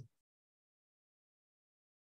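Near silence, after the last syllable of a spoken word fades out at the very start.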